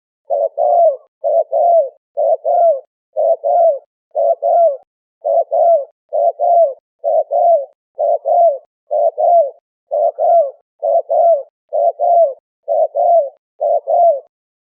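A dove cooing over and over: a two-note coo about once a second, the second note falling at its end. The calls are a repeated lure recording, the 'turtle dove sound' played to call in wild doves.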